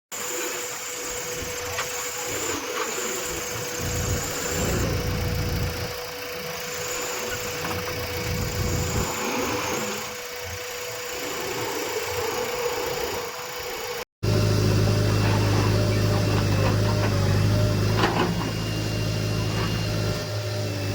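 Diesel engines of earthmoving machinery running steadily. After a cut about two-thirds of the way through, a closer engine is heard with a strong, steady low hum, and there is a single knock a few seconds later.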